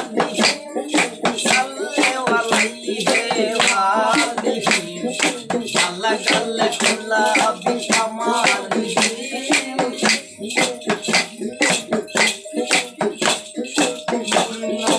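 Live Baul folk song: a voice singing a wavering melody over fast, steady hand percussion with jingles, a small hand drum among it, and a held drone note underneath.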